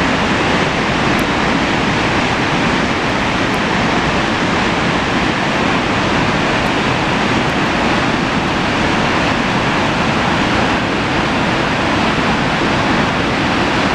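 Gullfoss waterfall rushing: a steady, loud wash of falling water.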